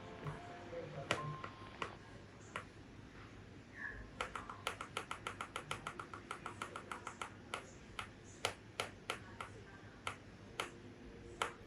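A rapid run of light, sharp taps or clicks, about eight a second for a few seconds in the middle, with scattered single taps before and after.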